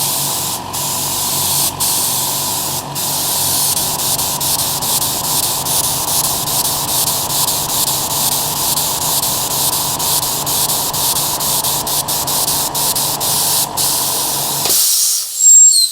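Air spray gun blowing a steady hiss of compressed air at 30 psi while the twin electric motors of a home-upgraded air compressor run underneath with a steady hum and whine. Near the end the motors cut out abruptly and a short, louder hiss follows. The compressor is only just keeping up with the gun.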